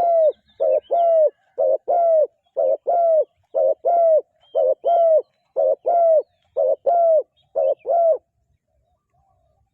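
Spotted dove cooing: a short coo followed by a longer one, the pair repeated about once a second. It stops about eight seconds in.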